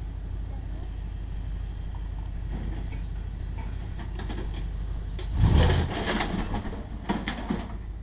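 Lifted pickup truck rolling slowly over a microwave oven: a steady low engine rumble, then a loud crunch a little past five seconds and about two seconds of cracking and crackling as the microwave is crushed under the tyres.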